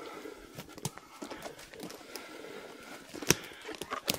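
Footsteps through forest undergrowth: leaves and plants rustling against the legs, with a few sharp snaps of dry twigs underfoot.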